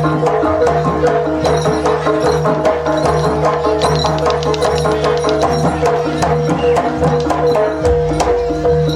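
Javanese jaranan music: pitched metal gong-chimes ring out repeating tones over a steady low drum pattern, with sharp percussion clicks throughout.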